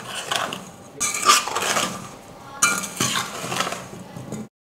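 Steel spoon scraping and clinking against a stainless steel bowl in several strokes as it stirs pieces of boiled amla into chili powder and spice powders. The sound cuts off suddenly near the end.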